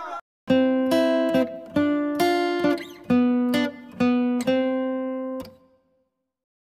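Acoustic guitar jingle: a run of strummed chords, about two a second, ending abruptly about five and a half seconds in.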